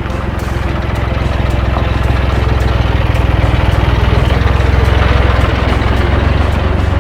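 A motor running steadily with a low hum and a fast, even rattle, growing a little louder over the first couple of seconds.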